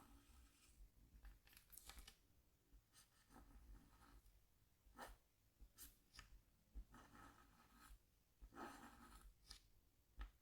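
Faint stylus scratching on a scratchboard: short, separate scraping strokes every second or so, with a few longer runs of scratching.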